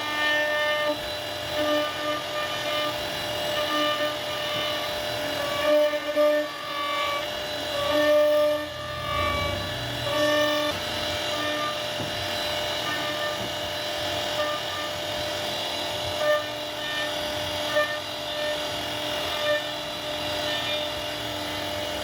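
CNC router spindle running while carving wood: a steady whine of fixed pitch over cutting noise, the whine swelling and dropping as the bit works through the cut.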